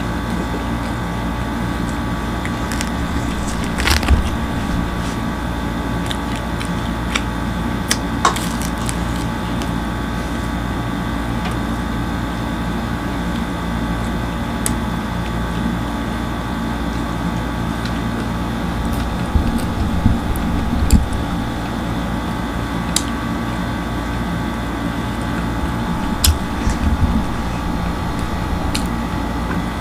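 Steady machine hum, with scattered short clicks and crackles as flatbread is torn and food is eaten.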